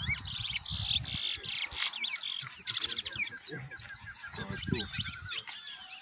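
Chestnut-bellied seed finches (towa towa) singing against each other: rapid phrases of sliding whistles, with a run of quick repeated notes in the middle.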